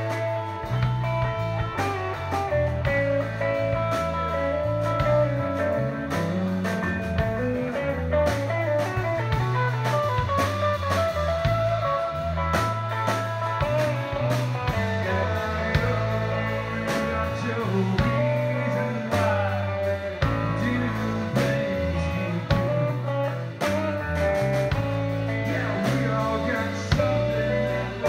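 Live band playing an instrumental passage: electric bass, electric guitar and a standing drummer's snare and cymbal.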